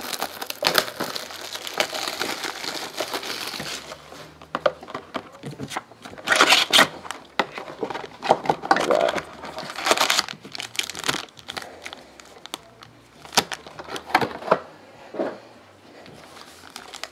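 Foil-wrapped trading-card packs crinkling as they are lifted out of a cardboard hobby box and set down on a table, with rustling and light knocks of the cardboard. A dense run of rustling comes first, then separate short crinkles and taps.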